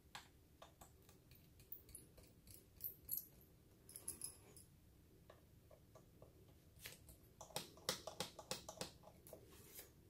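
Small screwdriver working the captive bottom-cover screws of a Lenovo ThinkPad E15: faint, scattered clicks and ticks of metal on metal, with a quick run of clicks near the end. The screws give a click once they are raised far enough to release.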